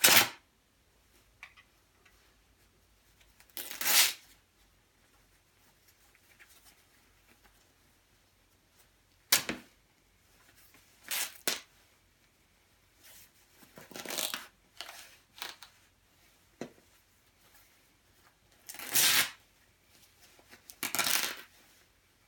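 Quilted down jacket's fabric being ripped and pulled apart by hand: about eight short tearing sounds spread out, with quiet between them.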